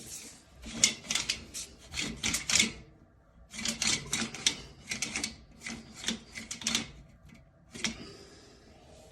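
Quick, rasping scrape strokes, several a second, in two bursts of a few seconds each, then a single stroke near the end.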